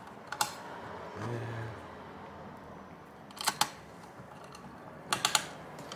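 Small sharp metallic clicks of a screwdriver working screws on a graphics card: one about half a second in, a pair about three and a half seconds in, and a quick run of three near the end.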